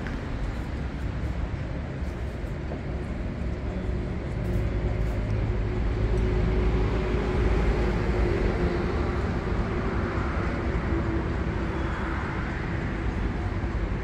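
Street traffic passing, a steady rumble that swells louder from about four seconds in, with a faint hum from a passing vehicle through the middle before easing off.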